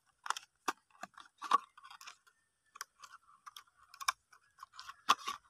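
Clear plastic lure packaging crackling and crinkling as it is handled and pulled open by hand: irregular sharp clicks and rustles, loudest about a second and a half in and again near the end.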